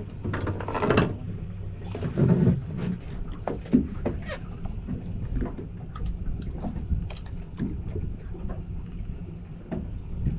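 Steady low hum aboard a fishing boat, with scattered clicks and knocks as rods and reels are handled, and a few louder bursts in the first few seconds.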